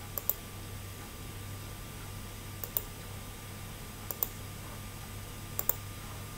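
Computer mouse clicking: four quick double clicks spread a second or more apart, over a steady low electrical hum.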